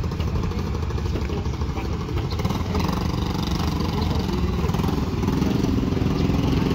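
A small engine running steadily, getting gradually louder.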